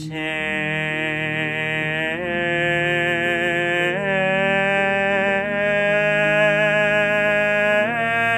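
A young male singer holding long sung notes with vibrato, stepping up in pitch about two, four and eight seconds in.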